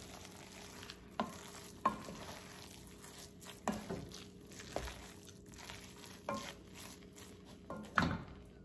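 Wooden spoon stirring thick, moist rice and shredded chicken in an enamelled Dutch oven: soft scraping and squelching, with about half a dozen irregular knocks of the spoon against the pot, the loudest near the end.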